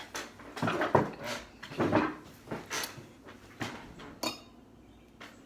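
Handling sounds: a run of short knocks and rustles as things are picked up and set down on a table, louder in the first couple of seconds and fading off near the end.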